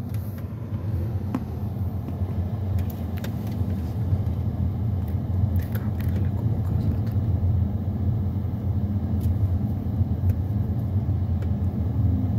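Steady low rumble of a Mercedes-Benz car driving on a paved road, engine and tyre noise heard from inside the cabin, with a few faint ticks and rattles.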